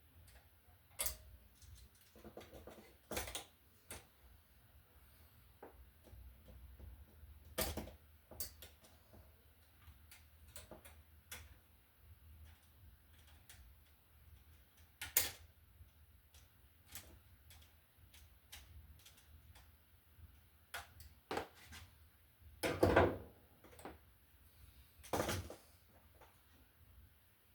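Hand work on a wall receptacle being wired: scattered clicks, taps and small knocks of tools, wires and the receptacle being handled, with two louder clattering knocks near the end.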